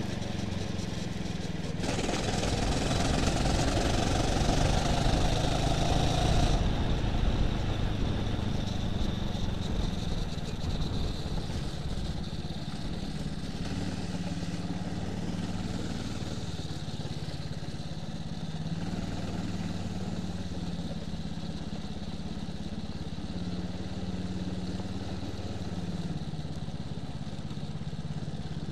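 Go-kart engine heard from the driver's seat, at first at speed with a loud rush of wind noise for several seconds, then running at low, steady revs as the kart slows and pulls up.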